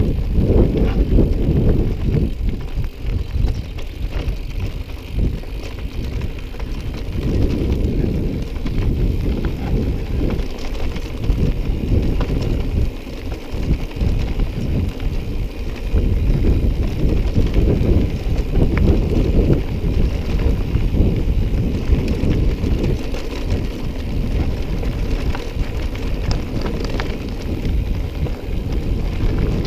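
Mountain bike ridden over a rough dirt trail: continuous tyre rumble and rattle of the bike, mixed with wind noise on the microphone.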